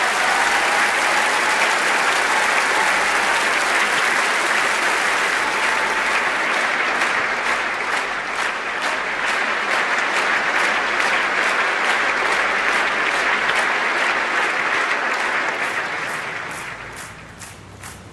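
Large audience applauding after a song ends. The dense clapping holds steady, then dies away near the end.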